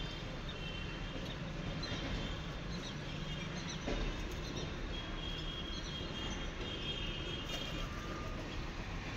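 Outdoor ambience: a steady low rumble with faint, short high chirps from small birds repeating through it, and a single soft thump about four seconds in.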